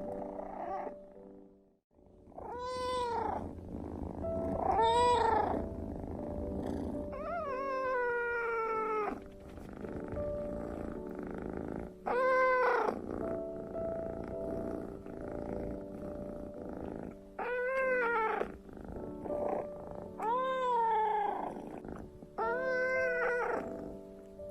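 Kitten meowing repeatedly, about eight separate meows that rise and fall in pitch, one drawn out and falling, over a low purr in the first few seconds.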